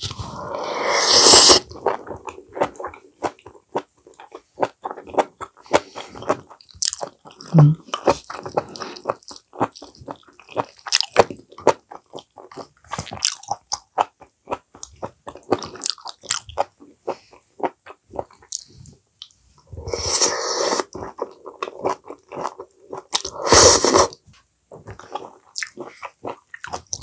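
Close-miked chewing of a mouthful of mushroom rice bowl: a dense run of short wet clicking and crunching mouth sounds. A few louder, longer bursts come near the start and twice near the end.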